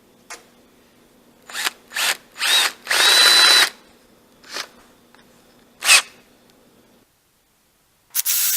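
Power drill run in short bursts, the longest about three seconds in with a motor whine, then running steadily near the end, boring the entry and perch-peg holes in a cedar birdhouse body.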